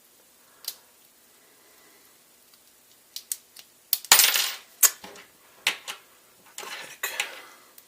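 Small metal lock-picking tools clinking and rattling against each other and the lock as they are handled. A few light ticks come first, then from about halfway a run of louder metallic jingling clatters.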